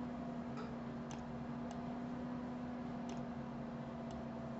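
Faint computer-mouse clicks, about five of them spaced irregularly, over a steady low hum.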